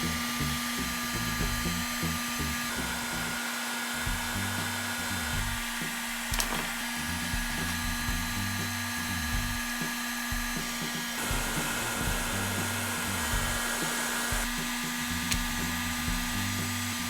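An electric hot-air blower runs steadily with a hiss and a constant hum, over background music with a moving bass line.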